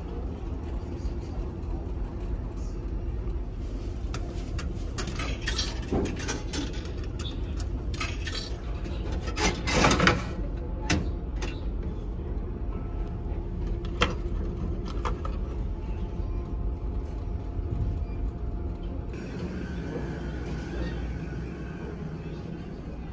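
Coins clinking and the dial clicking on a coin-operated toothbrush vending machine, with a louder clatter about ten seconds in as the packet drops into the tray. A steady low drone of the ferry's engines runs underneath.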